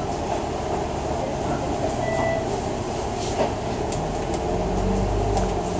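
City bus running, heard from inside: steady engine and road noise with light rattles and clicks, the engine note growing stronger from about four seconds in. A brief beep sounds about two seconds in.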